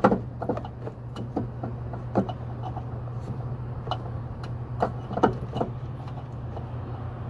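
Scattered small clicks and knocks of an LED headlight bulb and its plastic headlight housing being handled and twisted into place, over a steady low hum.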